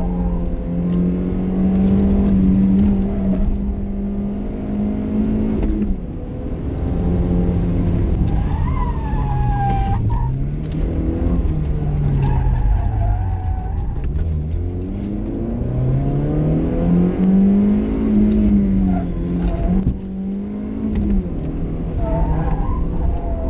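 BMW car engine heard from inside the cabin under hard driving on a sprint course. The pitch climbs and drops again and again as it accelerates, shifts and slows for corners. There is a brief tyre squeal about nine seconds in.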